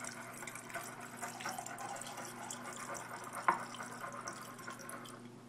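99% isopropyl rubbing alcohol poured in a steady stream from a plastic bottle into a glass jar of calcium acetate solution, trickling and splashing, with one light knock about three and a half seconds in.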